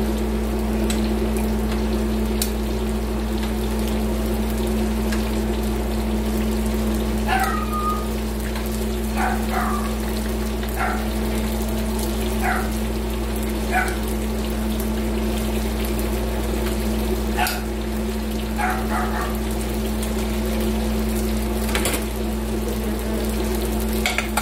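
Oil sizzling steadily as spring rolls and pork belly fry in pans, over a steady low hum. Several short metallic clinks of tongs against the pan are scattered through the middle.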